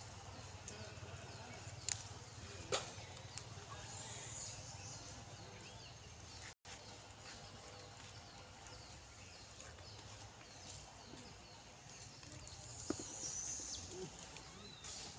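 Faint outdoor ambience: a low steady rumble under scattered high, thin chirps, with a few sharp clicks, two of them about two and three seconds in and another near the end. The sound cuts out for an instant about halfway through.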